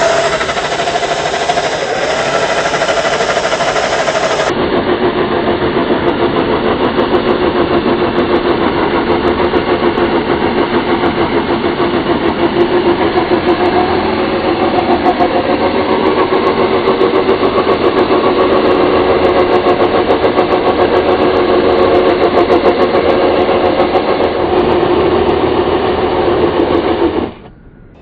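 Axial SCX10 III RC crawler's electric motor and geared drivetrain whining steadily under load, with a rattling mechanical edge. The sound cuts off suddenly near the end.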